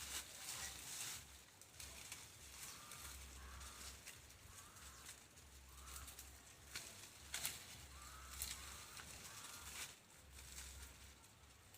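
Faint rustling and crunching of dry weeds and undergrowth, in short bursts every second or two, with a bird chirping a few times.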